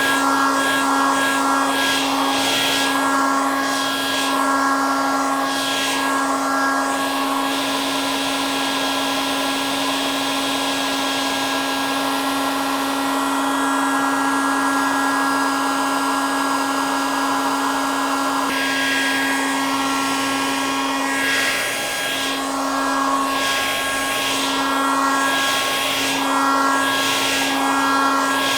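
Electric hair dryer running continuously: a steady rush of air over a constant motor hum. The rush swells and fades slowly and regularly for the first several seconds and again in the last third.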